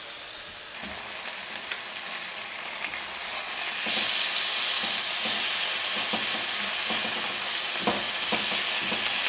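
Chicken thighs sizzling as they sear in a little oil in a nonstick skillet over high heat. The sizzle grows louder about four seconds in, as the browned pieces are turned over with tongs, and there are a few light knocks of the tongs against the pan near the end.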